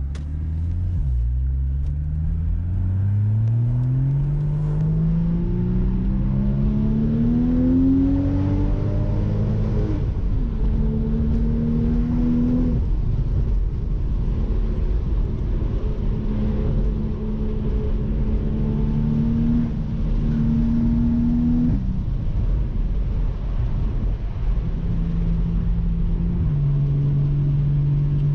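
Porsche Boxster 981's naturally aspirated 2.7-litre six-cylinder engine pulling up through the revs for about ten seconds, then running at steadier revs, its pitch stepping suddenly a few times as gears change. Heard from the open-top cabin over road and wind noise.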